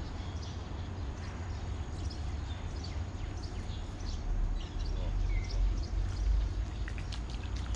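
Outdoor background of a low rumble that swells about halfway through, with scattered short high chirps above it.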